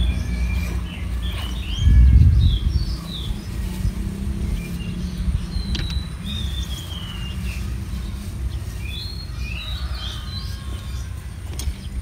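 Small birds chirping and calling, short rising and falling notes over a steady low rumble that swells briefly about two seconds in. A couple of sharp clicks near the end.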